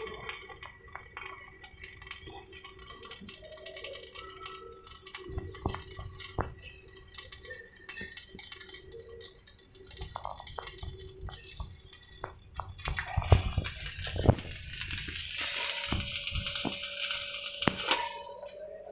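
Stick (SMAW) welding arc crackling and sizzling, with scattered ticks and clinks; the crackle grows loud and dense about thirteen seconds in and stops near the end.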